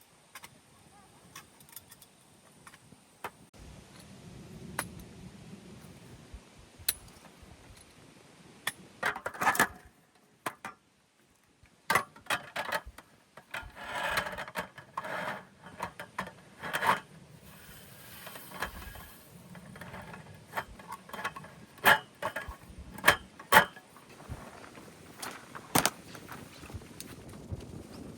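Scattered clicks, clinks and scrapes of small hard objects being handled, with a busier run of clattering about halfway through.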